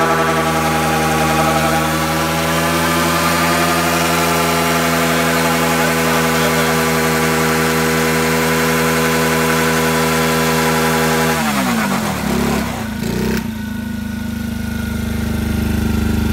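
Small ATV engine held at high, steady revs while driving its spinning rear wheel, then the revs drop away about twelve seconds in and it settles to a lower idle.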